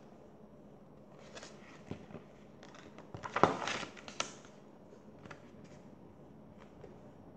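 An Usborne Young Reading paperback book being handled and its page turned: a run of short paper rustles and rubbing clicks, the sharpest and loudest about three and a half seconds in.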